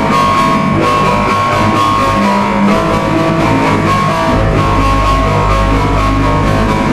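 Music with guitar, in a rock style, playing steadily; a heavier bass line comes in about four and a half seconds in.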